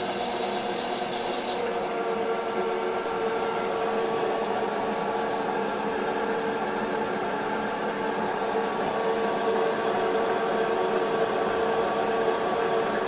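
Fortg BV20L bench lathe running steadily under power, a machine hum with several steady tones over it, while the tool takes a light facing cut of a tenth of a millimetre per pass under automatic cross-feed from an electronic leadscrew.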